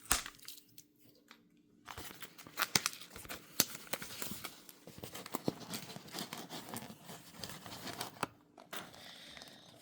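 A shipping package being torn open by hand, its paper and plastic wrapping tearing and crinkling in irregular spells with sharp clicks, starting about two seconds in.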